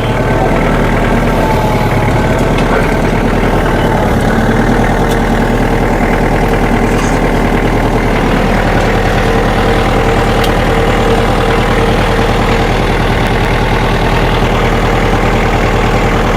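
A vehicle engine running steadily at a constant speed, with an even low firing pulse.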